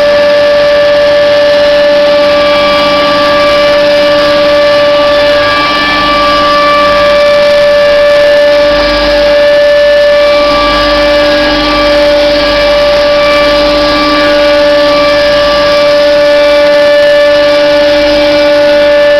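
Pipe elbow bending machine running with a loud, steady whine made of several held tones, the strongest one mid-pitched.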